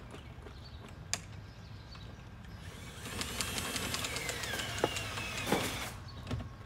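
Truck camper's hand-cranked corner jack being wound to raise the camper, its gearing clicking in a quick, even run from about three seconds in for about three seconds.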